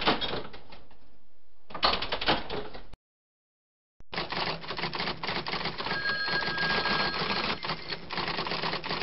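Rapid, dense clatter of typing keys in two stretches, broken by a silence of about a second. During the longer second stretch a steady high tone sounds for about a second and a half.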